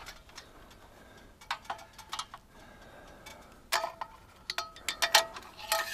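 Irregular sharp metallic clicks and clinks, some with a short ringing tone, as the metal parts of a satellite dish mount are handled and knocked together. There are a few clinks around one and a half to two seconds in and a denser run of them in the last two seconds.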